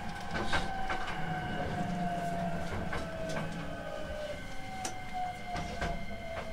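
Onboard running sound of a Hankyu 9300 series electric train slowing down. The traction motor whine falls slowly in pitch over a steady rumble, with irregular clicks and knocks from the wheels passing over rail joints.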